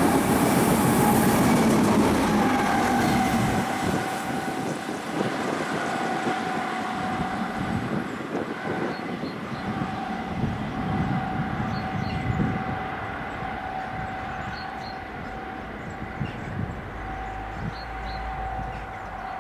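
Diesel engine of a lone DB class 290-family (V90) diesel-hydraulic shunting locomotive going past, loudest in the first few seconds and then slowly fading as it runs away down the line, with a steady high whine throughout.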